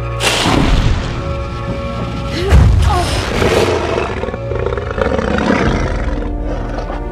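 Dramatic film score with two loud roars from the animated dragon, one just after the start and a louder one about two and a half seconds in.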